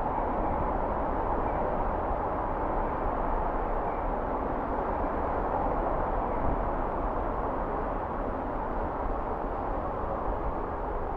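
Steady city traffic noise: a continuous hum and rumble of passing vehicles, with no bell strikes.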